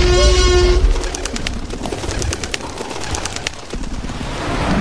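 Birds chirping: a run of quick, high chirps, following background music that ends within the first second.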